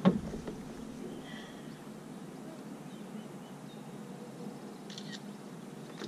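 A single sharp knock, then a low, steady background with a brief faint high chirp about a second and a half in and a few faint ticks near the end.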